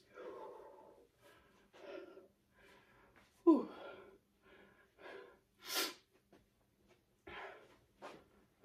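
Person with a cold catching her breath after jumping rope: short, uneven heavy breaths. About three and a half seconds in comes a loud voiced exhale falling in pitch, and near six seconds a sharp sniff through a stuffy nose.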